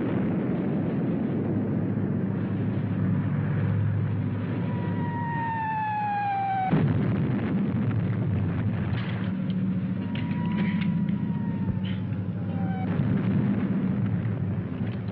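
Film battle sound effects: artillery shells whistle down in a falling pitch and explode, twice, about seven seconds in and again near the end. A steady low rumble runs underneath, with scattered sharp cracks between the blasts.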